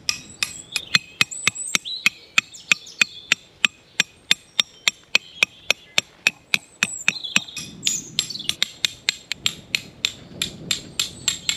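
Hammering: a steady run of sharp strikes, about three a second, with birds chirping in the background.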